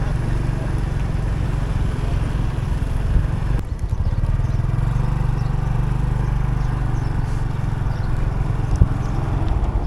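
A vehicle engine running steadily, a low rumble, with a brief dip about three and a half seconds in.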